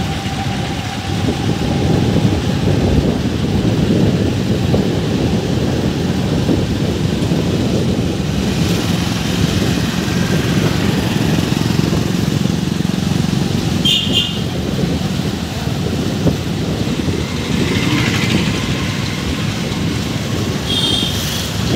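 Motorcycle being ridden along a road, its engine and the wind noise on the microphone making a steady loud din. Two short high beeps sound, one about two-thirds through and one near the end.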